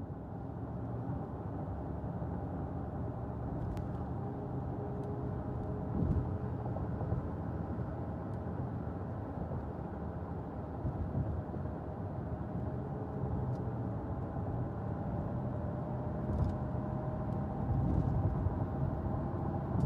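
Steady road and engine noise inside a car cabin while driving at highway speed.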